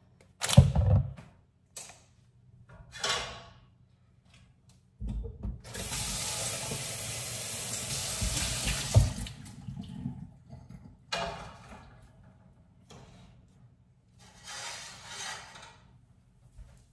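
Water pours steadily for about five seconds, with a sharp knock near the end of the pour. A loud knock opens the stretch, and short kitchen handling noises come before and after.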